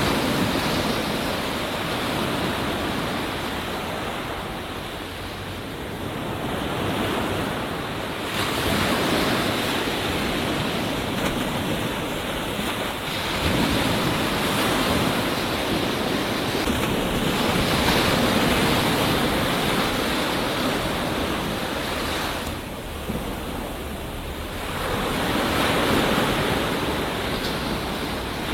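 Ocean surf breaking and washing up a beach: a continuous rush of white water that swells and eases every several seconds.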